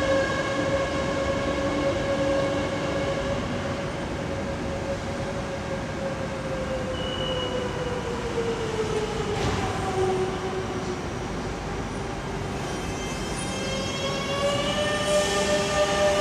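Madrid Metro Ansaldobreda 9000-series train giving off a steady electrical whine of several tones. The whine slides down in pitch around the middle and starts rising again near the end.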